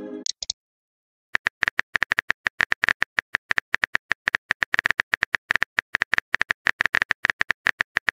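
Rapid keyboard typing clicks from a texting app's sound effect, several a second, starting about a second in. Before them the tail of a message chime fades out.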